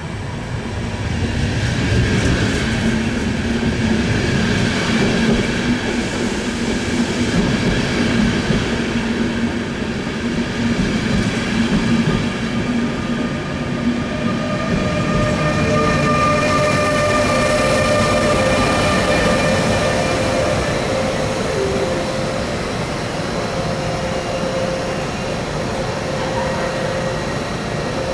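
A train running past at a railway station, loud throughout, with a steady low whine in the first half and higher steady whining tones in the second half.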